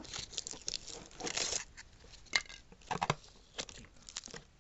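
Cardboard box and packaging being handled and tape pulled off: irregular crinkling and tearing rustles with a few sharp clicks.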